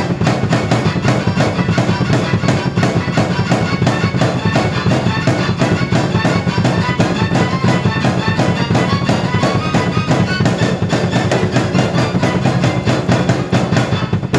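A drum kit and a keyboard played together in a steady, even beat, drum strikes under keyboard notes.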